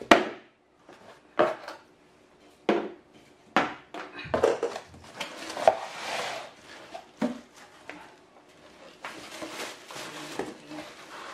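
Cardboard packaging being handled and opened by hand: flaps scraping and knocking in a series of short thumps, with the plastic bag around the pot crinkling in between.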